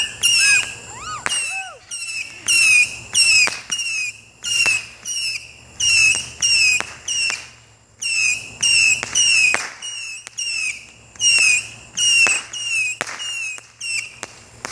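Consumer firework going off in a rapid run of short, high-pitched whistling pulses, about two a second, which stop shortly before the end.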